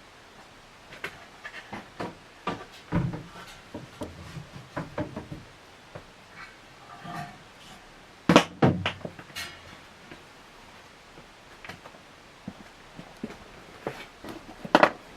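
Scattered clicks, knocks and rustles of ceiling fan parts and packaging being handled, with two loud knocks a little past halfway.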